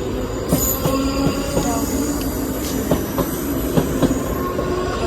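Passenger train running on the rails with a steady rumble and a low hum, its wheels clicking irregularly over the rail joints.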